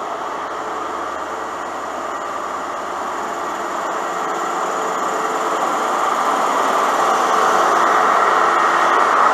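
Diesel engine of a Class 43 InterCity 125 (HST) power car running as it moves slowly past close by, getting steadily louder and loudest near the end as the power car draws level.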